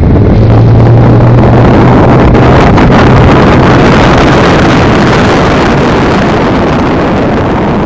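Motorboat engine running under way, its pitch stepping up about half a second in, with wind noise on the microphone.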